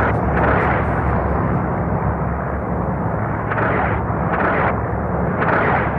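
Steady aircraft engine drone with four blasts of explosions breaking over it, about half a second in and then three in quick succession in the second half.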